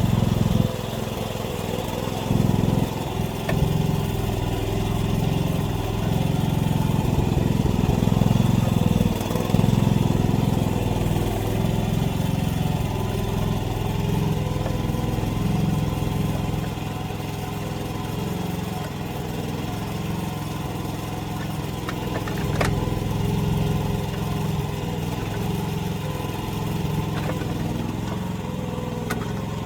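AGT mini excavator's small engine running steadily, its load rising and easing as the machine works, with a few sharp knocks.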